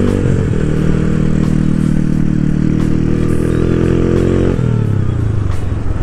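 Motorcycle engine running at a steady speed while riding, then easing off about four and a half seconds in, its note dropping lower.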